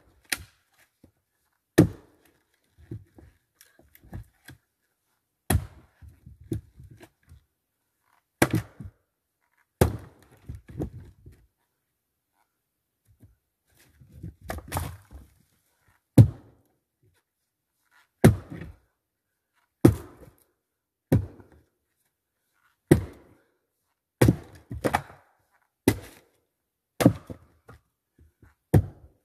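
Fiskars X25 splitting axe chopping into a eucalyptus trunk: a run of about fifteen heavy thunks, roughly one every one to two seconds, with smaller knocks of wood between strikes and a short pause a little before the middle.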